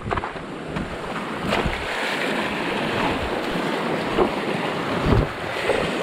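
Steady rush of a stream's water close to the microphone, with a few sharp knocks about a second and a half in and again near the end.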